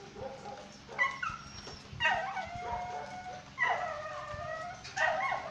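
Dogs giving four short, excited whines and yips about a second apart, the sound of dogs worked up by rats hidden in a woodpile.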